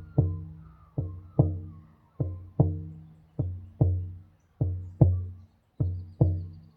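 Irish bodhrán frame drum beaten in a steady heartbeat rhythm: paired strokes, the second of each pair louder, a pair about every 1.2 seconds, each stroke ringing out low before dying away. Birds chirp faintly in the background.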